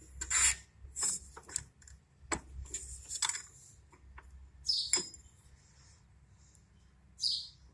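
Scattered light clicks and short high-pitched scrapes of small metal parts of an old engine's carburetor being handled.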